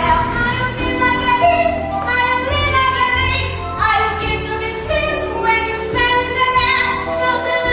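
Young voices singing a melody over musical accompaniment.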